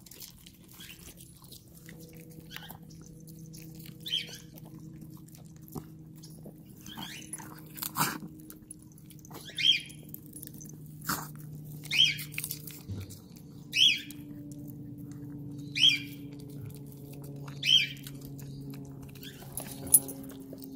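Dogs crunching and chewing raw asparagus stalks, with a short crunch about every two seconds over a low steady hum.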